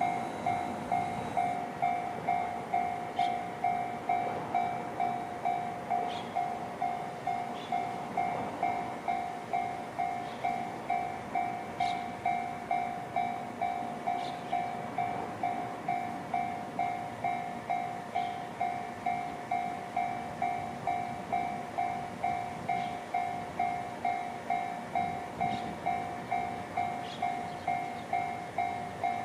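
Japanese railway level-crossing alarm ringing with the JR standard electronic bell sound: a steady, fast, even run of electronic dings that warns of an approaching train. Faint ticks sound now and then behind it.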